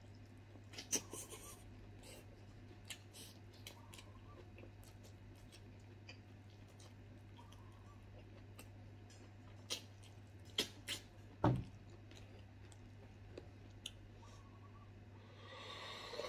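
Faint chewing and wet mouth clicks and lip smacks from someone eating with his hands, over a steady low hum. Near the end comes a short slurp as he drinks broth from a bowl.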